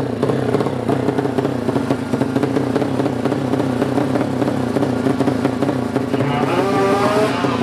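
Drag-race motorcycle engine running steadily at the start line, held at an even idle without revving. Voices call out near the end.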